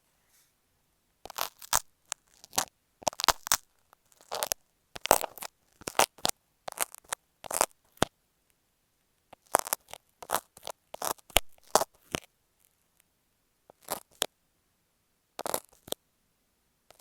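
Marking pins and masking tape worked right on an earphone microphone: close, crackly scratches and taps in irregular clusters, with short pauses between them.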